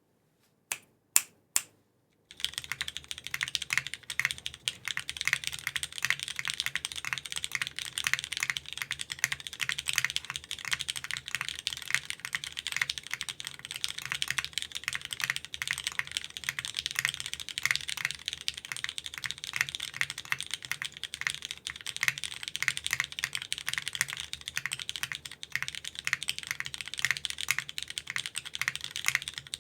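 Geonworks F2-60 mechanical keyboard with lubed Cherry MX2A Black linear switches on an aluminium plate and DCS-profile keycaps, typed on fast and continuously. A few single clicks come first, then the steady stream of keystrokes starts about two seconds in.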